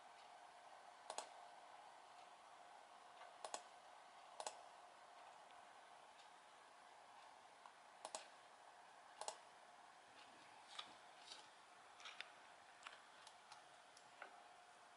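Computer mouse buttons clicking now and then: about ten sharp, separate clicks, the loudest in the first half, over a faint steady hum.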